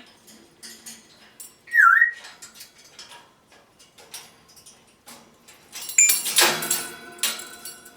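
African grey parrot whistling one short note that dips and rises about two seconds in, then about six seconds in giving a loud, rough, rasping noise lasting around a second.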